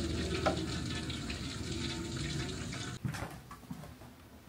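Heavy rain falling in a storm, a steady hiss that cuts off suddenly about three seconds in, followed by a few faint clicks.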